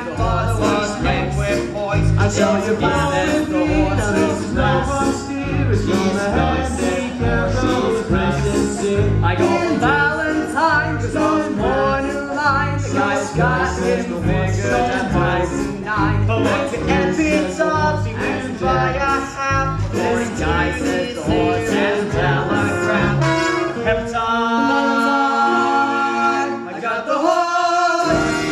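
Several voices singing overlapping lines in a musical-theatre fugue over an accompaniment with a steady bass beat. Near the end the voices hold long notes together.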